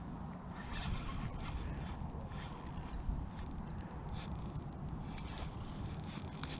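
Fishing reel clicking and ratcheting in irregular runs as a hooked carp is played.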